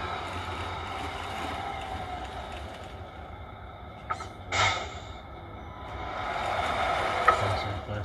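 Simulated V8 engine sound from the Tamiya Scania 770S radio-controlled truck's sound unit as it drives, swelling about six seconds in. A short hiss about four and a half seconds in and a few sharp clicks.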